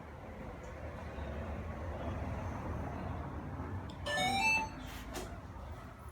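DJI Ronin-MX gimbal's tilt motor making its faulty noise: a steady low hum, then about four seconds in a loud half-second burst of rising, stepped whining tones, followed by faint clicks.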